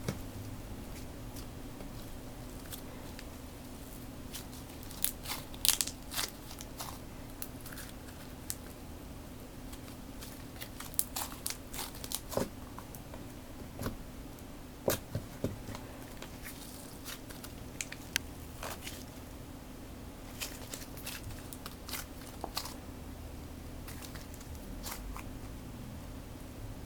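Crunchy slime being poked and squished, giving scattered crackles and small crunches at irregular intervals. A steady low hum runs underneath.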